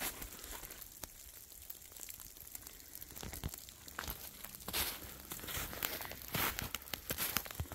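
Footsteps crunching and rustling at an uneven pace, sparse at first and with several louder crunches in the second half.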